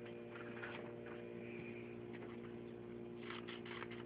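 Faint steady electrical hum with a few soft paper rustles. About three seconds in, scissors begin snipping through construction paper in quick short cuts.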